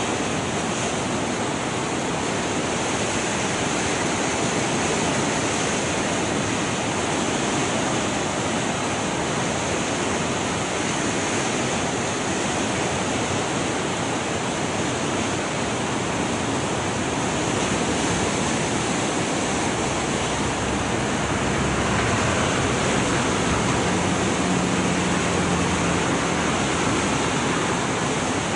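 Kosi River floodwater rushing and churning past the Koshi Barrage in heavy flood: a steady, loud rush of turbulent water.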